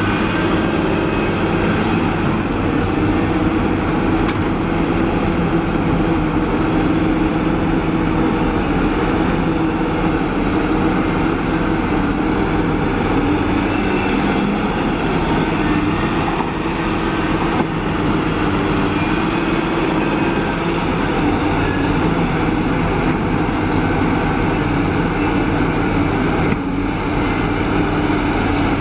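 Kobelco SK350 hydraulic excavator's diesel engine running steadily while the machine digs and loads.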